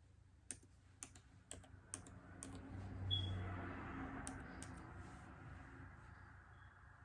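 Keys tapped one at a time on a MacBook Air keyboard while Wi-Fi details are typed in, as scattered soft clicks over the first five seconds. A soft swell of noise rises about two and a half seconds in and fades away over the next few seconds.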